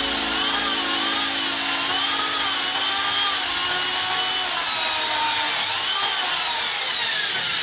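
Electric motor turning a model truck's propeller shaft and rear-axle differential gears, a whine that rises and falls in pitch several times, then slides steadily down over the last two seconds as it slows.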